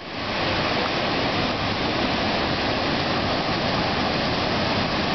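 Ocean surf breaking and washing in: a steady rush of wave noise.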